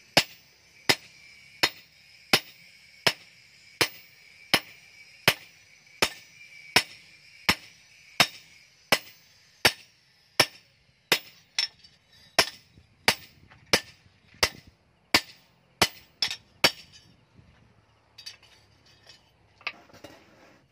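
A hammer strikes a steel knife blade on a small steel anvil block in evenly paced, sharp metallic blows, about one and a half a second. The blows stop about three-quarters of the way through.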